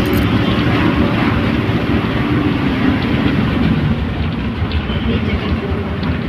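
Bus engine running with a steady drone and road rumble, heard from inside the passenger cabin.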